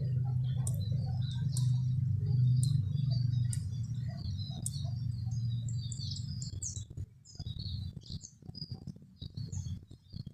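Small birds chirping, with a string of short, sharp high calls roughly once a second, over a loud low rumble that turns choppy after about seven seconds.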